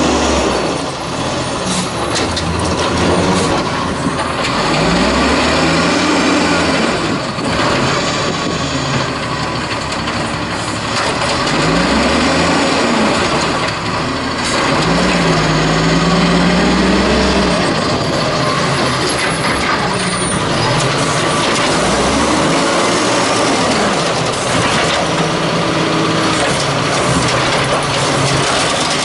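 1994 WhiteGMC WX-64 garbage truck's natural-gas engine running and revving up and down several times as the truck pulls up to a cart and its Amrep rail arm lifts the cart to dump it.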